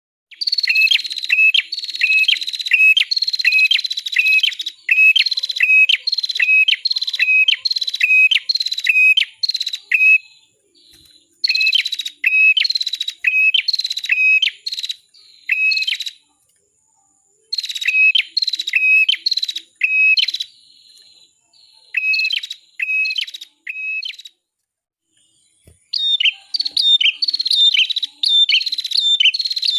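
A small songbird known in Indonesia as prenjak or ciblek kepala merah (red-headed prenjak), singing a rapid series of repeated chirps. Each note sweeps down in pitch and then hooks back up. The notes come about two a second in runs of several seconds, broken by short pauses.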